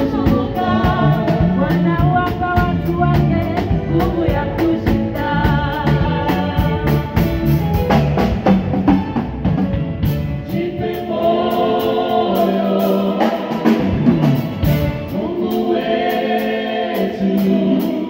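Live gospel praise band playing: several voices singing together in Swahili over a drum kit, electric keyboard and bass guitar, with steady drum and cymbal hits; the bass thins out for a while past the middle.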